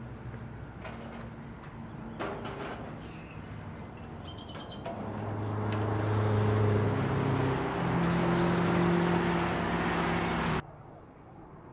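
BMW X6 M's twin-turbo V8 engine under hard acceleration, swelling to full volume from about five seconds in and stepping up in pitch partway through, then cut off abruptly near the end. A few knocks and clicks come before it.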